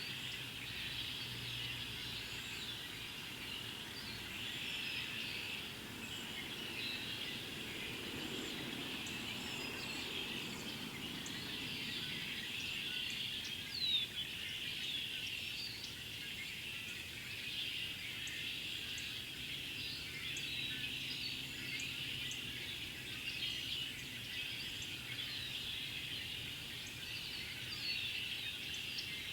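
A large mixed flock of red-winged blackbirds and cedar waxwings calling and singing all at once, a continuous dense chorus of overlapping chatter, with one louder call about halfway through.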